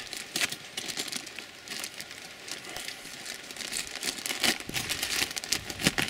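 Clear plastic packaging bag crinkling and rustling in gloved hands as a new brake-pad spring is pulled out of it, with a few louder crinkles near the end.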